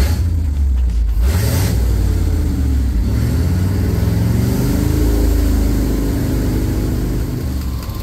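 1975 International dump truck's gasoline engine, running on a freshly fitted Holley Sniper throttle-body fuel injection, revved from idle up to about 2,500 rpm and then let fall back toward idle.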